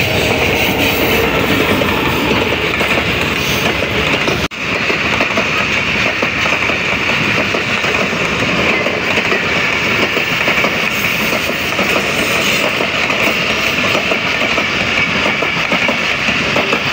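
Passenger express train's coaches rolling past at moderate speed, a steady rumble with the clickety-clack of wheels over rail joints. There is a brief break about four seconds in.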